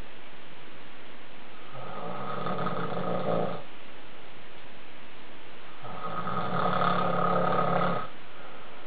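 A man snoring in his sleep: two snores, each about two seconds long and about four seconds apart, with a steady hiss between them.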